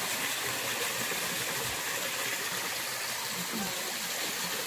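Waterfall and stream water rushing steadily over rocks.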